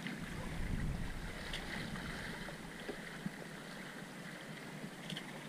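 Water rushing along the hull of a sailing yacht under way, with wind buffeting the microphone, heaviest in the first couple of seconds.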